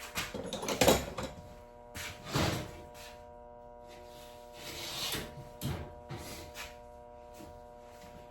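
Emery cloth being cut and handled: four or five short rustling, scraping sounds, the loudest about a second in, over a faint steady hum.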